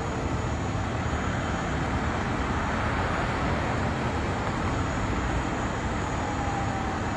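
Steady low rumble of street traffic and emergency-vehicle engines, with faint whines that slide in pitch, one falling near the end.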